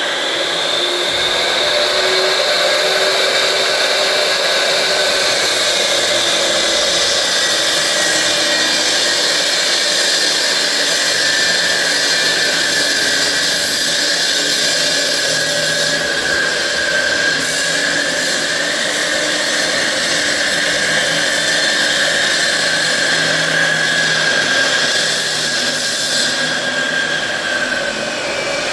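Electric saw running continuously as it cuts into a wall for a door opening, a steady high-pitched motor whine that wavers slightly under load.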